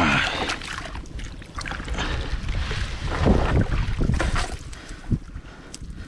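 Water splashing and sloshing as a cast net is hauled dripping out of the water into a small boat, with strong wind buffeting the microphone in irregular gusts, heaviest partway through.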